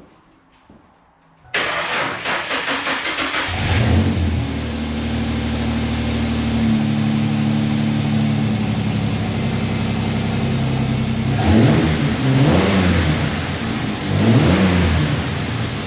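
A 1999 Ford Mustang's 3.8-litre V6 cranking on the starter about a second and a half in. It catches within a couple of seconds, settles to a steady idle, and is then revved briefly three times.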